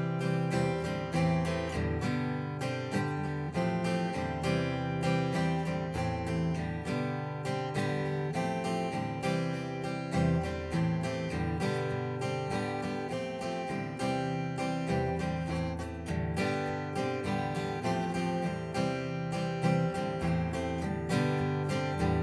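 Martin 000-17 acoustic guitar strummed in steady up-and-down strokes at a brisk tempo, cycling through a four-chord progression that includes A minor 7 and G.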